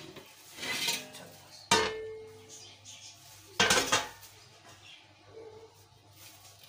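Metal steamer pot and lid being handled: a sharp metallic clank about two seconds in that rings on briefly, then another clatter about a second and a half later.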